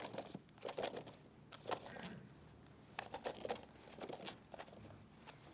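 Faint, scattered light splashes and taps as water is poured from a plastic cup into plastic cups packed with cherry tomatoes.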